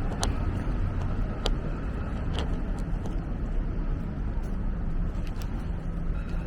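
Steady downtown street traffic, a low rumble of passing vehicles, with a few sharp clicks in the first two and a half seconds.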